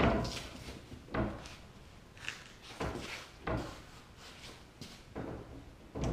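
Hand-operated rotary draw mandrel bender bending a 1-inch 6061 aluminum tube toward 90 degrees: a string of irregular knocks and creaks, about one a second, as the handle is pulled around the bend die and the following die is dragged along with the tube.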